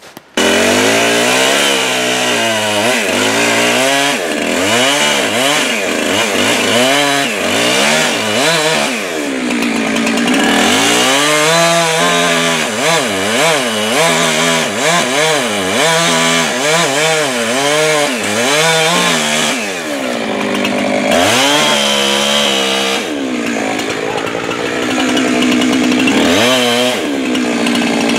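Gasoline chainsaw cutting into a rotted tree trunk, its engine pitch dropping and rising again and again as the chain bogs down in the wood and frees up.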